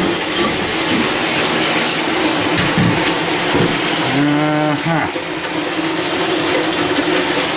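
Shower running full, a steady spray hiss from water just turned back on after the winter shut-off. About four seconds in comes a brief low moaning tone, under a second long.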